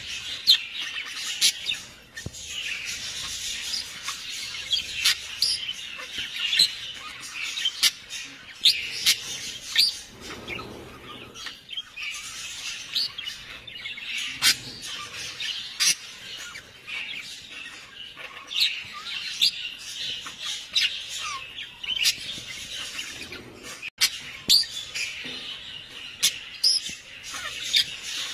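Many birds chirping, with frequent short, sharp calls over a steady high chatter.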